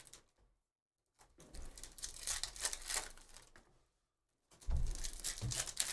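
Foil trading-card pack wrappers crinkling and cards being shuffled in hand, in rustling spells broken twice by total silence. Near the end come a couple of low knocks as the packs are handled on the table.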